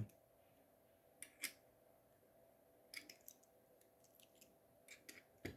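Near silence: a few faint, short clicks in three small groups over a faint steady hum.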